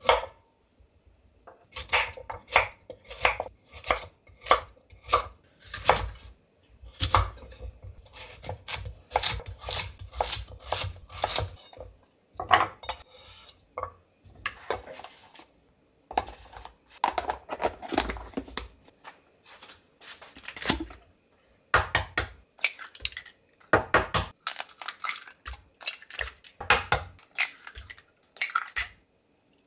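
Chef's knife chopping a carrot on a wooden cutting board: a run of sharp knocks, about two or three a second, for the first ten seconds or so. Later, scattered clatter of kitchen dishes and eggs being cracked into a glass blender jar.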